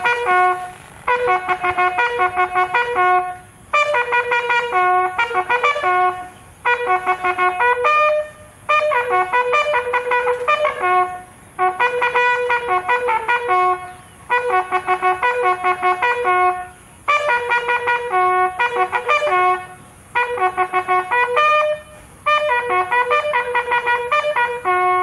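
Bugle call sounded for the raising of the flag: quick runs of a few bright notes in repeated short phrases with brief pauses between, ending on a long held note.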